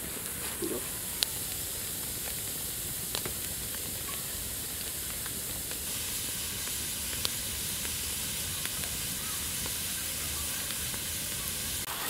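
Wood campfire burning under a bamboo tube of porridge: a steady hiss and sizzle as the contents boil and foam at the tube's mouth, with a few sharp crackles from the fire.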